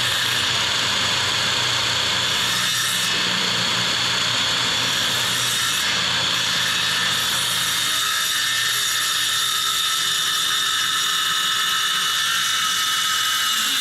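Electric power saw cutting a length of hardwood straight across, its motor running steadily with a high whine throughout.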